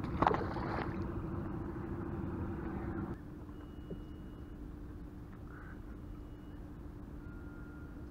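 Electric trolling motor on a raft humming steadily with a constant tone, over a haze of water and air noise. A brief splash comes near the start, and the hiss above the hum drops away about three seconds in.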